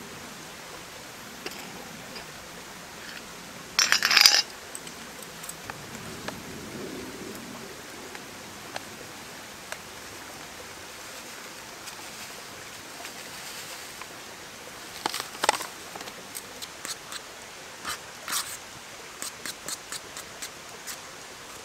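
Cooking utensils on a small metal camp pot: a brief clatter about four seconds in, then from about two-thirds of the way through, a run of sharp clinks and scrapes as instant mashed potato is stirred in the pot. A steady soft hiss lies underneath.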